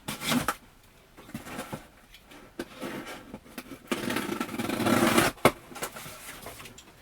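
A cardboard shipping box being handled and opened by hand: scattered scrapes and rustles, a louder stretch of rough noise lasting over a second about four seconds in, and a sharp knock just after.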